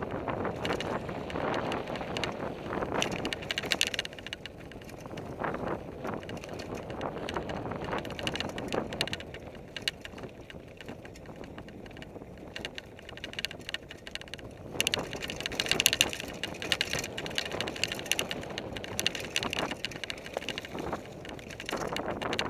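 Fuji Thrill LTX mountain bike rolling fast downhill on dirt singletrack: tyres crunching over the trail and the bike rattling and clicking over bumps. The rattling gets louder and busier about fifteen seconds in, then eases.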